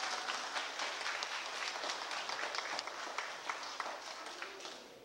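Audience applauding: many hands clapping in a dense patter that slowly dies down toward the end.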